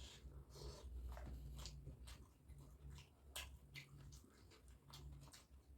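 Faint mouth sounds of chewing chicken momo: scattered soft wet smacks and clicks, several a second, over a low steady hum.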